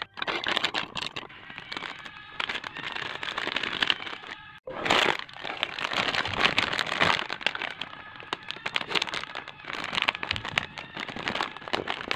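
Plastic snack packets crinkling and rustling as they are handled and lifted out of a cardboard box, with a brief break about four and a half seconds in.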